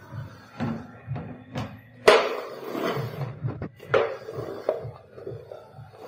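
Hand-push rotary floor sweeper being pushed back and forth over floor tiles. Its plastic body knocks and clatters with each stroke, the loudest knock about two seconds in.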